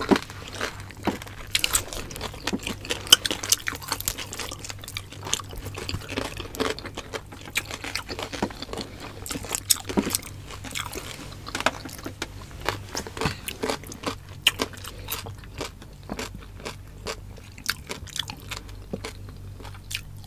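Close-miked chewing and crunching of roast suckling pig, with many irregular bites and crunches from two eaters. A faint steady low hum lies underneath.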